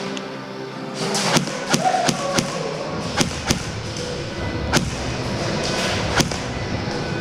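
Airsoft gunfire: about ten sharp single-shot cracks at an irregular pace, several in quick succession near the start, over background music.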